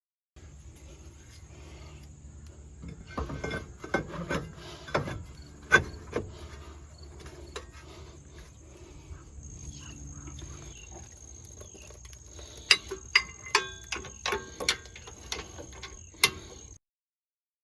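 Metal hand tools clinking and clicking against brake hardware, in two clusters of sharp strikes, some of them ringing briefly. A faint steady high-pitched whine runs underneath.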